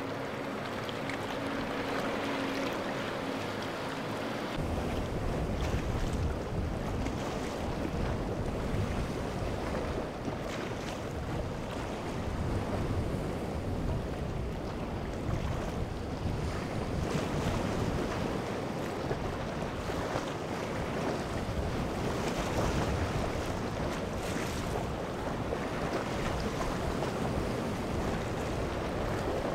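A boat engine hums steadily for the first few seconds. Then wind buffets the microphone over the wash of waves, a heavy rumbling noise.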